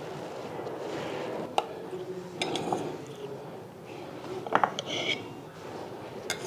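A metal knife clinking and scraping against a stainless steel plate while cutting and lifting a wedge of set agar milk pudding. There are a few sharp clinks, the loudest about four and a half seconds in, followed by a short metallic ring.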